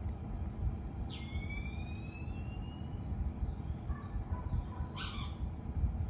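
Tesla Model 3 Boombox preset lock sounds being previewed: a rising, whistle-like tone lasting about two seconds, then a short sharp sound about five seconds in, over a steady low rumble.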